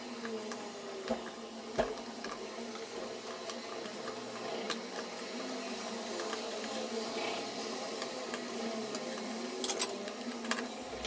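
Scattered light clicks and taps of a small screwdriver working the screws and plastic frame of a Samsung Galaxy Note 2, the sharpest just under two seconds in and a quick pair near the end, over a faint wavering background hum.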